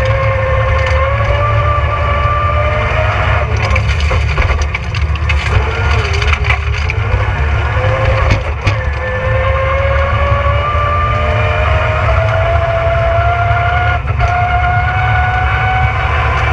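Rally car engine heard from inside the cabin, pulling hard with its pitch climbing slowly, easing off briefly around the middle, then climbing steadily again. Under it run a heavy road rumble and sharp clatter and crunching from the loose stage surface.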